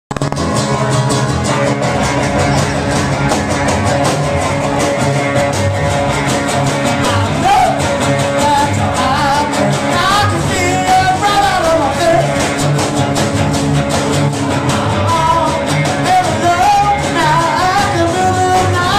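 Small live band playing: strummed acoustic guitar, electric guitar and drums, with a man singing into a microphone from about seven seconds in.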